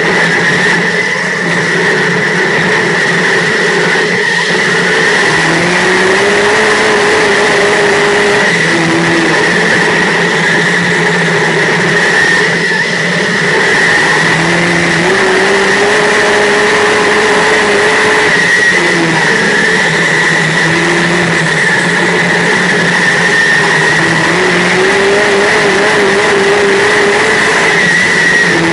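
Dirt modified race car's V8 engine heard from inside the cockpit at racing speed. It revs up and holds on the straights, then eases off into the turns, about every nine seconds. A steady high whine runs over it throughout.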